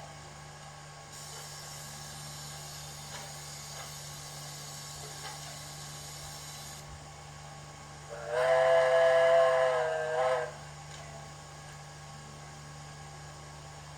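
DCC sound decoder of a model Victorian Railways K class steam locomotive, played through the model's small onboard speakers. It gives a hiss of steam for about six seconds, then a steam whistle blast of about two seconds, which is the loudest sound.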